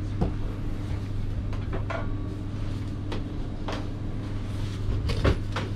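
Clatter at a fast-food counter: a handful of short knocks and clicks over a steady low hum.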